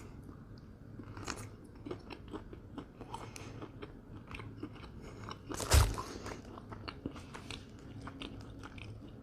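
Close-miked chewing and biting of a sausage on a stick wrapped in a tortilla: a quiet run of small mouth clicks and smacks, with one louder thump about six seconds in.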